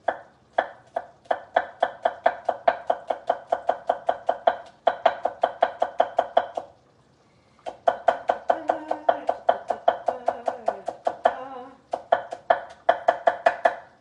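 Kitchen knife chopping green onion on a cutting board: quick, even strokes about five a second, in runs broken by two short pauses.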